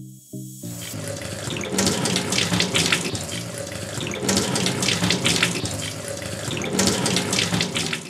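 Water running from a kitchen tap and splashing over hands being rinsed under the stream. It starts about half a second in and stops near the end.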